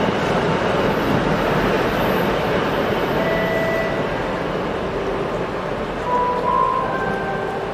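TEM18DM diesel shunting locomotive running light past and away: a steady rumble of its diesel engine and wheels on the rails, slowly fading as it draws off. A few short steady tones sound about halfway and again near the end.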